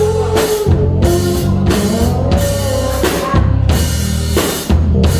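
Live rock band playing loud: a drum kit hitting a steady beat over heavy bass, with an electric guitar holding and bending a note.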